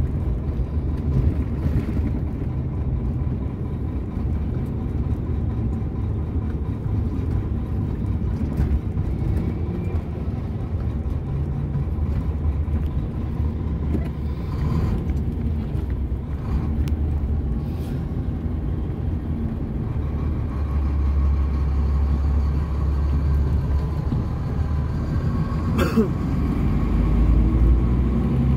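A heavy truck's diesel engine and road noise heard from inside the cab while driving, a steady low drone that swells louder twice in the second half. A brief sharp click sounds a couple of seconds before the end.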